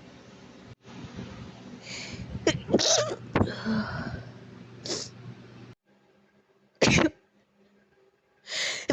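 A person's breathy allergy sneezes with build-up breaths: several short sharp sneezes in the first half, then after a quiet stretch one loud, short sneeze about seven seconds in.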